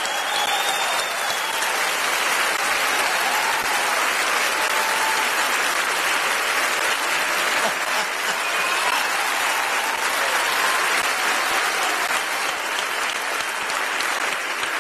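Large stadium concert crowd applauding steadily, a dense wash of clapping with a few faint shouts and whistles above it, welcoming a guest singer just introduced on stage.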